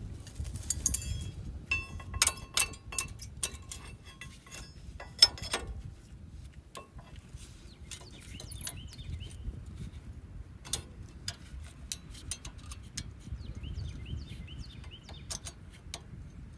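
Metallic clicks and clinks of a rear brake pad being worked into the abutment clips of the caliper bracket, metal on metal. A quick run of sharp clicks comes about two seconds in, with scattered clicks after that. Birds chirp faintly in the background.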